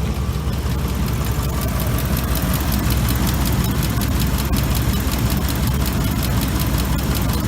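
2005 Ford F-150 engine idling steadily with the air-conditioning compressor running during a refrigerant recharge, with a fast, even light ticking over the low rumble.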